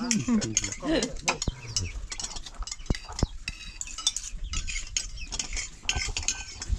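Metal cutlery clinking and scraping against plates as people eat, in many short irregular clicks; a voice is heard briefly in the first second.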